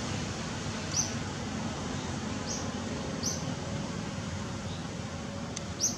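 Outdoor ambience: a steady low rumbling hiss with four short, high-pitched chirps, the loudest near the end.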